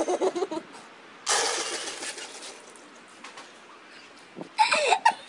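People laughing and squealing in short bursts at the start and again near the end. About a second in, a sudden short rushing hiss fades away over about a second.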